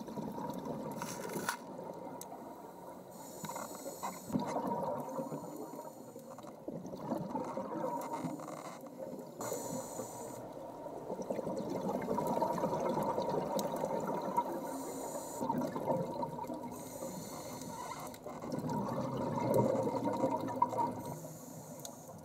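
Scuba regulator breathing heard underwater: hissing inhalations every few seconds and bubbling exhalations.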